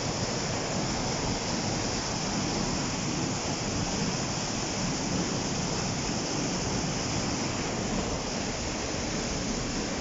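Whitewater of the River Lyd rushing down a narrow rock gorge: a steady, even rush of falling water.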